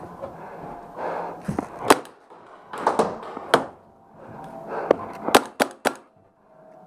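Paintball marker shots: about seven sharp cracks, singly at first, then four in quick succession about five seconds in.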